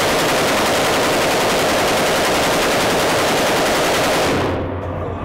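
Belt-fed machine gun firing one long, unbroken burst of full-automatic fire that stops about four and a half seconds in.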